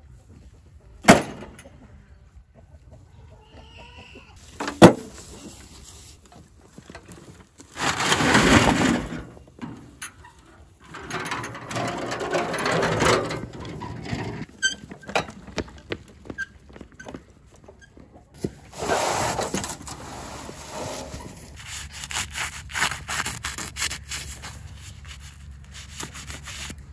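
Concrete blocks being loaded into a metal wheelbarrow: two sharp knocks in the first five seconds, then longer stretches of scraping and rolling noise.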